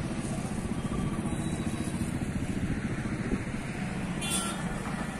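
Motorcycle engine running as it rides along a concrete flyover, a steady low pulsing that eases slightly near the end. A brief hiss comes about four seconds in.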